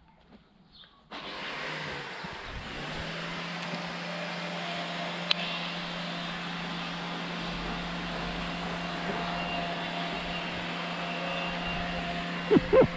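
A motor running steadily, cutting in abruptly about a second in, with a steady low hum joining it about two seconds later and one sharp click a little after the middle.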